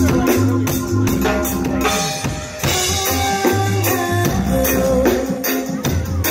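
Live reggae band playing: a drum kit keeping a steady beat over a deep bass line, with guitar and keyboards.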